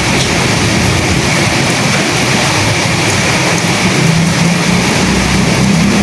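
Steady rain and wind noise, an even loud hiss. About four seconds in, a low humming rumble swells up beneath it.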